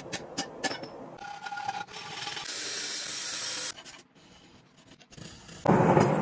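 A few hammer blows on the anvil near the start, then a steel file rasping steadily across the steel blade clamped in a vise, and near the end the forge's burner running loudly.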